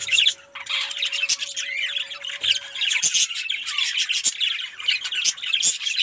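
Budgerigars chattering and squawking, a dense run of quick chirps and warbles.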